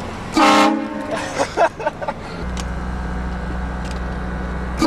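A train horn sounds one short, loud blast about half a second in, followed by a few brief sharp sounds and then a steady low engine hum.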